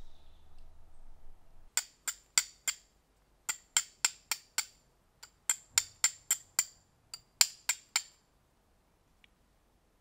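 Steel fire striker hitting a flint, a run of about twenty sharp, high metallic clinks in quick bursts of four to six, roughly four a second, stopping about eight seconds in. Each strike throws sparks to light tinder for a fire.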